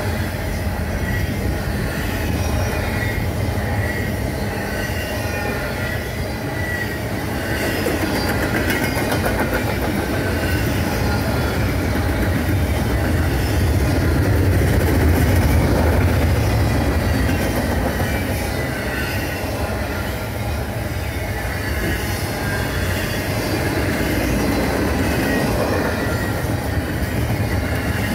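Freight train of double-stack intermodal well cars rolling past: a steady rumble of steel wheels on rail, swelling a little around the middle, with faint high-pitched wheel squeal drifting above it.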